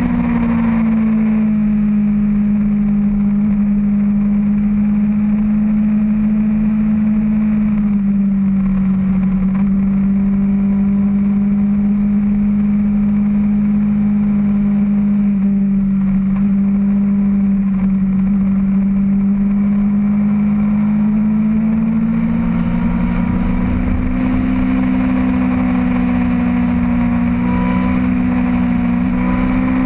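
Motorcycle engine running at a steady cruising speed, recorded from on the bike, its pitch easing down slightly about eight seconds in and rising again near the end.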